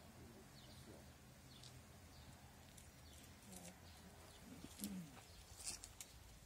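Near silence with faint bird chirps, a couple of low calls, and two sharp clicks in the second half.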